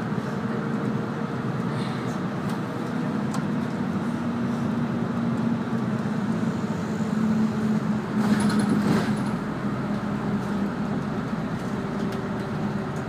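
Route bus running, heard from inside the passenger cabin: a steady engine drone with road noise, swelling louder for a moment about eight seconds in.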